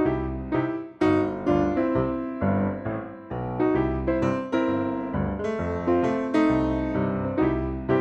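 Background piano music: struck chords and a bass line at a steady beat.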